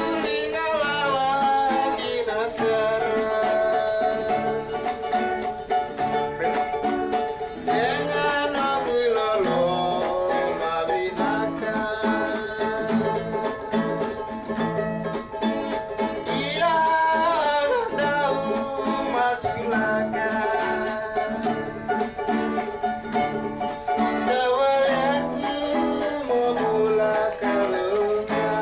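Acoustic guitars strummed in a steady rhythm, with voices singing a song together over them.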